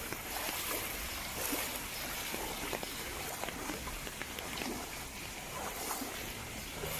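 Footsteps wading through shallow floodwater, each step sloshing and splashing, over a steady hiss of moving water.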